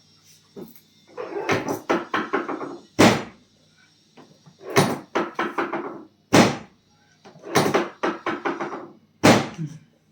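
Chiropractic treatment table during spinal adjustments: three times over, a rapid rattling run of knocks ends in one sharp thud, about every three seconds.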